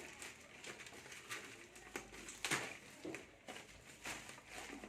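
Scattered soft clicks and rustles of a parcel and its packaging being handled, the sharpest about two and a half seconds in.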